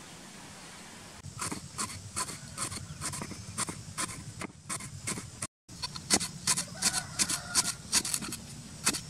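Cleaver chopping lemongrass stalks on a round wooden chopping board: quick, sharp knocks, about three or four a second, starting about a second in, with a short break in the middle.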